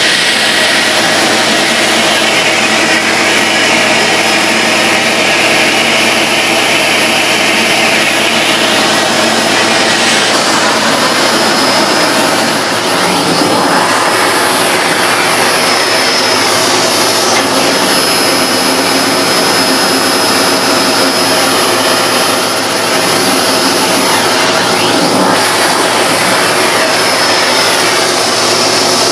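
Hoover Globe bagless vacuum cleaner running continuously, its motor giving a loud, high-pitched scream over the rush of air.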